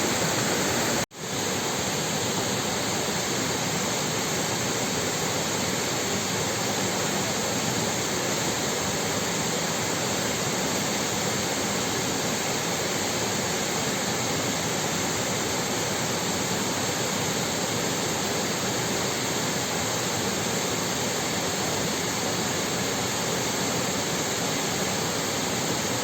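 Waterfall water rushing in a steady, even roar, cut by a momentary drop-out about a second in.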